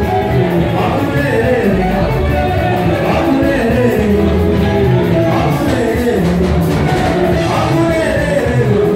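Music: voices singing a worship song over instrumental accompaniment, loud and steady throughout.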